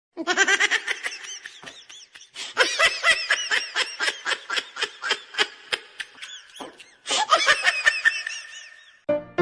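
High-pitched laughter in quick repeated bursts, about three to four a second, breaking off briefly near seven seconds and then starting again.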